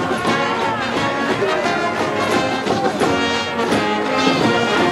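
School brass band, trumpets in front, playing a brass cheer tune for a baseball team with a steady beat.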